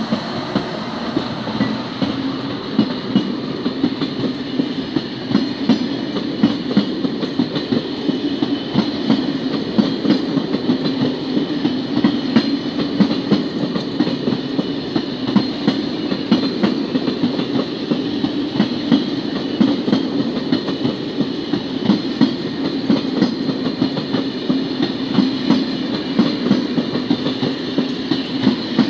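Corail passenger train running on the line, its wheels clattering steadily over the rails with a dense run of clicks over a continuous rumble.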